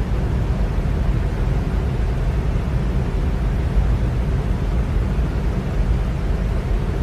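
Electric fan running steadily: a constant low-pitched rush of moving air.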